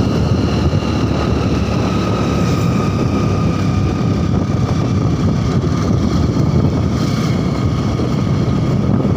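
Motorcycle running at a steady cruise while riding, mixed with a steady rush of wind on the microphone.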